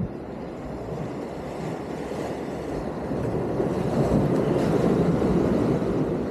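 Sea surf washing against the concrete tetrapods of a breakwater, mixed with wind rumbling on the microphone. It swells louder for a few seconds about halfway through as a wave surges in among the blocks.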